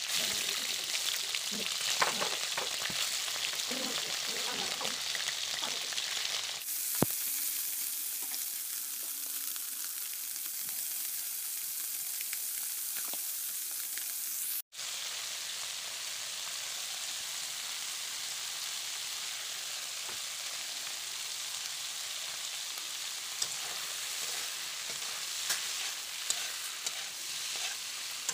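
Small whole fish frying in hot oil in a wok: a steady sizzle, with the scrapes and clicks of a spatula stirring and turning them. The sizzle drops out for an instant near the middle.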